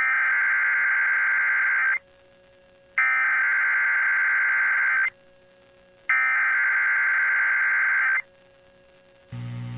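Emergency Alert System SAME header: three bursts of screeching digital data tones, each about two seconds long and a second apart, broadcast over radio to start an alert. A low buzzing hum starts just before the end.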